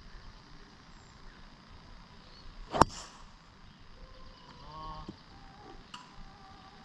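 Golf driver striking a ball off the tee: one sharp strike about three seconds in, with a brief ringing after it.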